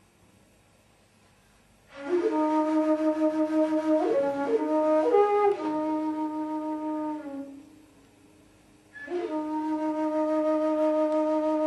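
A wind instrument playing long held notes in the middle register. The first note starts about two seconds in, steps briefly through a few higher notes and settles back. It stops, and a second long note begins about nine seconds in.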